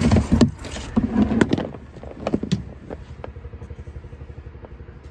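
Several sharp knocks and clatter from handling the plastic storage compartment and charging cable of an electric golf cart, in the first two and a half seconds, then a steady low rumble with a few small ticks.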